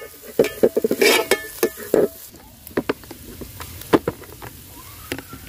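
Steel spoon scraping and clinking against a metal cooking pot while stirring shallots, garlic, ginger and green chillies frying in oil, with a faint sizzle. The clicks come thick and fast for the first two seconds, then only now and then.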